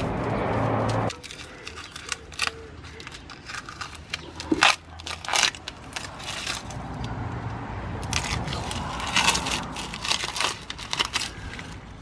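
Masking tape being peeled by hand off a car's rear wheel hub and painted brake backing plate, in short crackling, tearing rips. A loud steady noise in the first second cuts off suddenly.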